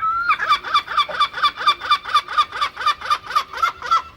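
Herring gull giving its long call: one rising opening note, then a fast run of loud repeated call notes, about four to five a second.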